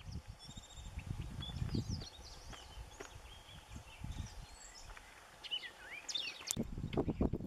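Wild birds chirping and singing in short, sliding calls over a low rumbling noise, which gets louder near the end.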